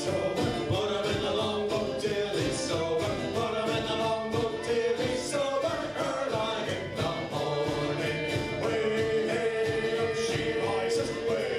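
Live folk band playing, with several voices singing together over guitars, a fiddle and a snare drum keeping a steady beat.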